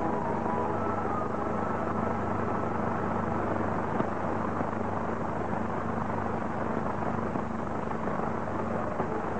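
Steady low hum and hiss of an old film soundtrack, with a single faint click about four seconds in.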